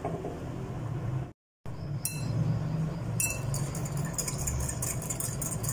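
A spoon beating yogurt in a glass bowl, clinking rapidly against the side, starting about two seconds in.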